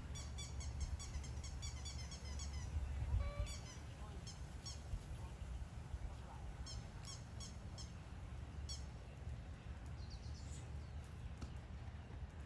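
Birds calling: a rapid run of short high-pitched calls in the first two seconds, then shorter runs every second or two, over a steady low rumble.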